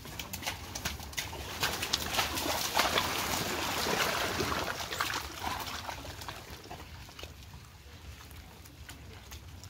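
Water buffalo and its wooden-wheeled cart moving through wet mud: squelching and sloshing that swells up about two seconds in and fades after about five, over scattered sharp clicks and knocks.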